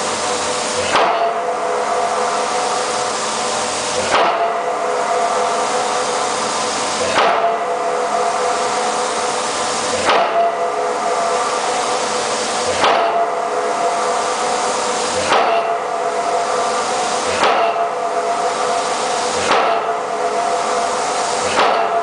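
Impact pile hammer driving an open-end steel pipe pile: nine heavy blows, each leaving the steel pipe ringing with a metallic tone, over a steady hiss. The blows come about three seconds apart at first and quicken to about two seconds apart near the end.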